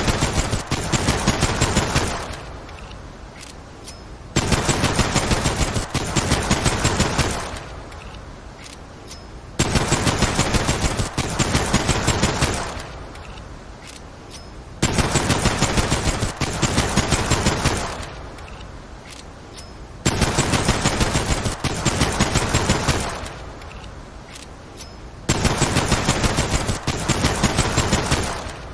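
Service pistol gunfire sound effect played repeatedly: bursts of rapid shots, each about three seconds long and trailing off in a short echo, recurring about every five seconds.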